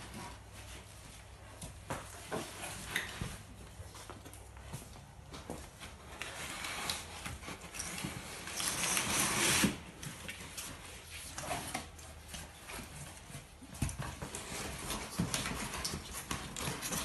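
Recycled honeycomb cardboard panels being handled and slotted into each other: scattered knocks, taps and rubbing, with a louder scraping rush about halfway through.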